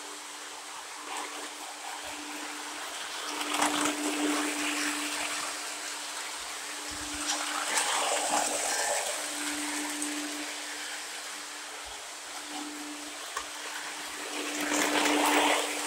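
O gauge model trains rolling on three-rail track: a steady hiss and rumble of wheels and motors that swells about four seconds in, about eight seconds in, and again near the end, with a low hum that comes and goes.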